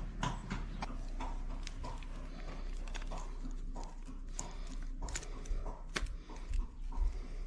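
Metal roller chain links clinking and rattling in the hands as a new BMW N45 oil pump chain is worked onto its sprocket, many short irregular clicks, over a low steady hum.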